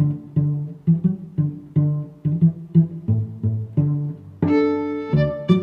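Background music: low plucked string notes in a steady rhythm, joined about four and a half seconds in by a sustained bowed string note.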